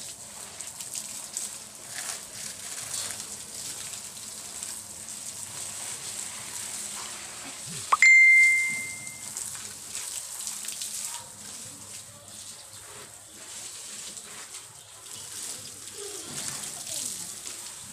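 Garden hose spraying water in a fan over dry soil and plants, a steady hiss. About eight seconds in, a sudden loud single ding rings out for about a second.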